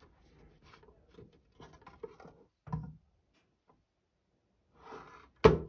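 Handling noise from a CB radio's metal case being turned over by hand on a table: light scrapes and taps, a knock about two and a half seconds in, and a sharp, loud thump near the end.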